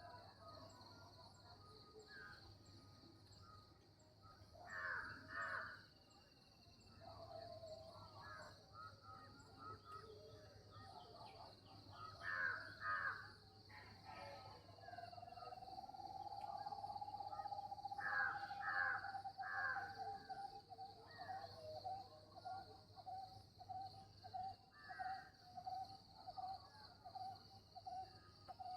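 Crows cawing outdoors, in runs of two or three harsh caws repeated a few times, over a steady high-pitched hiss. About halfway through a steady wavering tone sets in and turns into rapid pulses.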